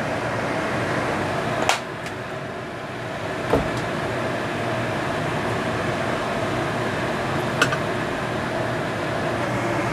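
Steady fan-like hum of kitchen appliance noise while a wok of cooking oil heats on the stove. It is a little louder in the first couple of seconds as oil is poured from a plastic bottle into the wok, and a few light clicks or taps come about two, three and a half and seven and a half seconds in.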